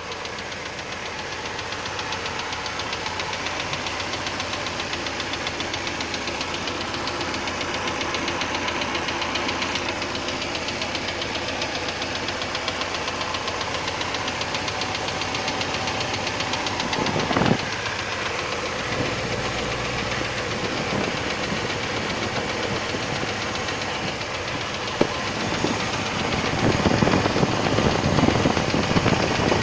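ZMZ-406 inline-four petrol engine running with a rapid, even knock whose cause has not been found. There is one sharp sound about seventeen seconds in, and the sound gets louder and rougher over the last few seconds.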